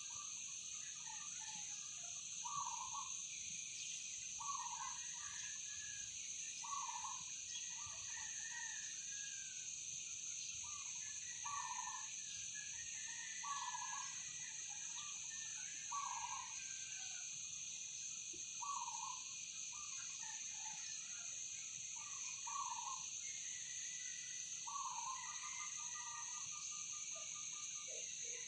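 Outdoor morning chorus: a steady high-pitched drone of insects, with a bird repeating a short call about every two to three seconds.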